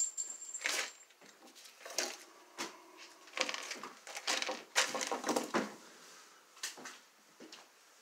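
Hand tools and wiring being handled at an outlet box: a run of irregular clicks, clatter and rustling, busiest in the middle of the stretch.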